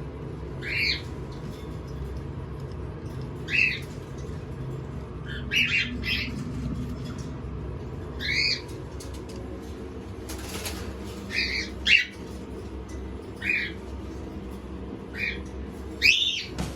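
Young cockatiels giving short chirping calls, about a dozen scattered through the stretch, some in quick pairs or triplets, over a low steady hum.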